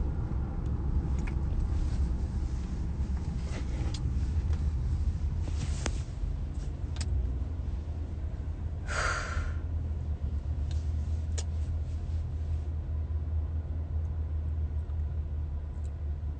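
A steady low rumble, with a short hiss about nine seconds in and a few faint clicks.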